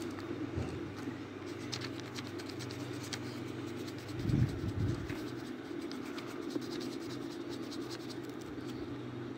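Pencil scratching on lined notebook paper in quick short strokes, over a steady low hum. A dull low thump a little over four seconds in is the loudest sound.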